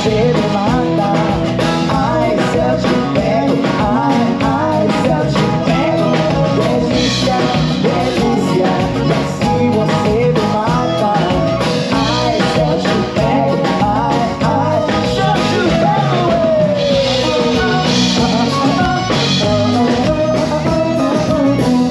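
A live band playing Brazilian music: a singer into a microphone over drum kit, trumpet and guitar.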